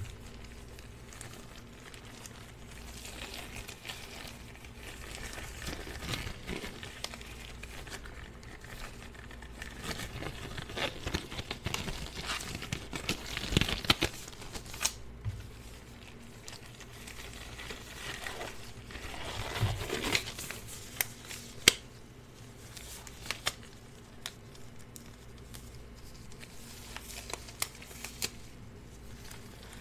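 Disposable gloves being handled and pulled onto the hands, crinkling and rustling, with a few sharp clicks and snaps along the way.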